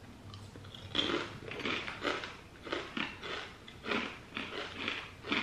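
Kettle-cooked potato chips being bitten and chewed, a short dry crunch about three times a second, starting about a second in.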